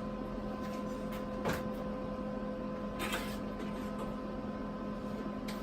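Steady electrical hum with several fixed tones, broken by two faint brief rustling clicks in the middle.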